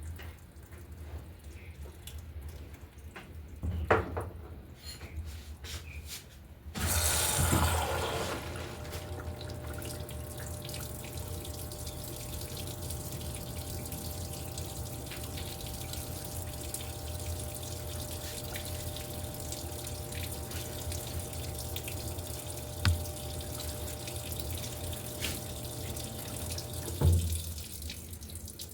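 Electrolux LTE08 top-load washing machine moving water: a rush of water starts about seven seconds in and runs steadily with a low hum under it, then cuts off with a thump near the end.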